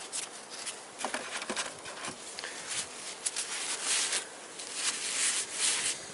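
Cloth rag rubbing and rustling against a flywheel bolt as it is wiped clean of dirt, in irregular scrubbing strokes with a few light clicks.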